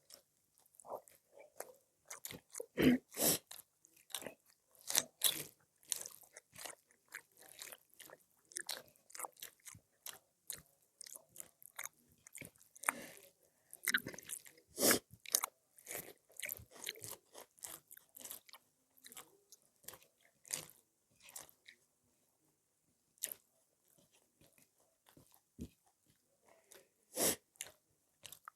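A person eating close to the microphone: biting and chewing food with irregular crunches and clicks, pausing briefly about three-quarters of the way through.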